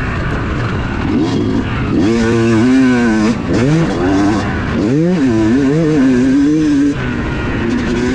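Yamaha YZ250's single-cylinder two-stroke engine under way on a motocross track, its revs rising and falling as the throttle is opened and chopped. The engine pitch climbs about two seconds in, drops sharply a second later, climbs again about halfway and is held, then falls off near the end, over a constant rush of wind and tyre noise.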